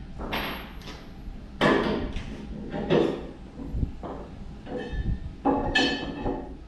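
A handful of sudden metallic knocks and clanks, a few of them ringing briefly, from tools and bolts being handled while the truck cab is unbolted from its frame. The two loudest come about a second and a half and three seconds in.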